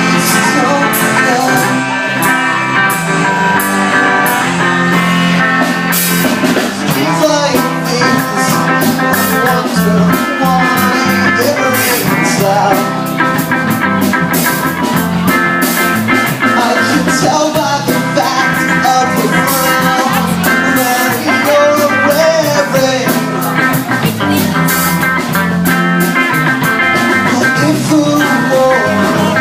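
Instrumental break of a rock song: guitar playing over a band with a steady beat.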